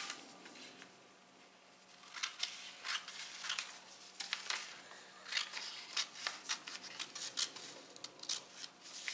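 Scissors cutting through stiff paper pattern paper: a run of crisp snips, about two a second, starting about two seconds in.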